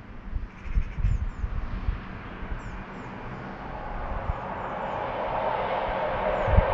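Wind buffeting the microphone in gusts while small birds chirp high and on and off. From about halfway a steady rushing noise builds, the sound of an approaching train.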